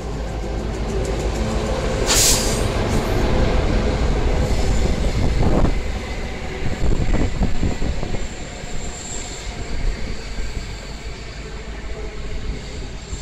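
Queensland Rail diesel locomotive passing close, its engine running, then its passenger carriages rolling by with a steady rumble and clicking wheels. There is a brief loud hiss about two seconds in, and a faint high squeal later.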